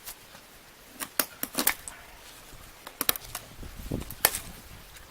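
Sharp clicks and clinks of small metal wheelbarrow axle parts being handled, in scattered groups, with a duller knock a little before four seconds.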